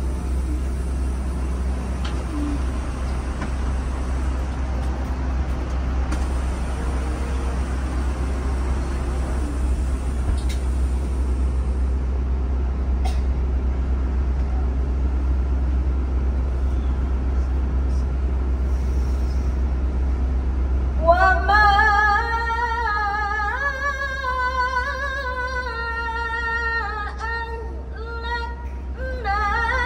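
Steady low rumble inside a bus for about twenty seconds, then a woman begins reciting the Quran into a handheld microphone in a melodic, ornamented style, in long phrases that bend up and down in pitch.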